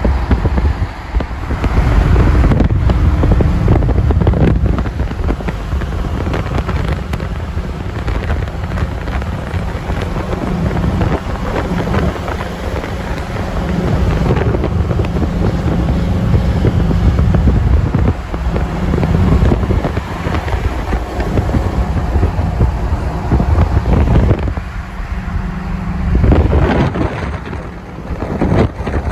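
Wind buffeting the microphone through an open car window at highway speed, with road and traffic noise underneath; the rumble dips briefly near the end.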